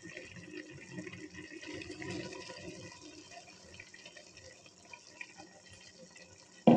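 Clams boiling in their liquid in a pan: a steady fine bubbling and crackling. There is a short louder burst right at the end.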